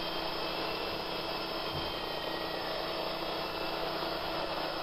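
Sawmill's wide slabber attachment cutting through a large alder log, its engine running steadily under load.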